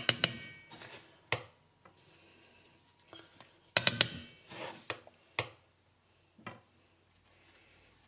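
A metal spoon clinking and knocking against kitchen dishes: a handful of separate sharp clinks, with a quick cluster about four seconds in.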